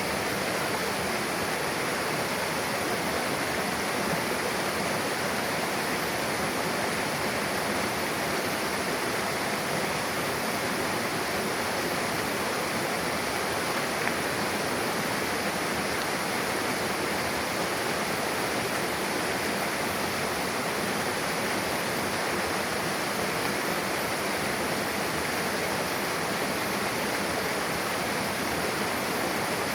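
Mountain river rushing steadily over rocks where two streams join, a constant dense rush of water.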